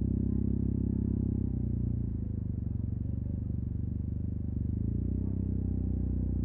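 Yamaha TMAX 560 maxi-scooter's parallel-twin engine running at low revs through an Akrapovic carbon full-system exhaust, a steady low engine note with small shifts in pitch.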